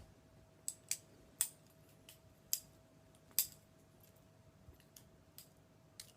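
A balisong (butterfly knife, a Benchmade 42 clone) being flipped: irregular sharp metallic clicks and clacks as the handles swing around the blade, about ten in all, the loudest about three and a half seconds in.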